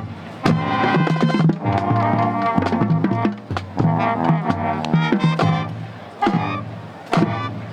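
Music with brass and drums: brass playing over sharp, repeated drum hits.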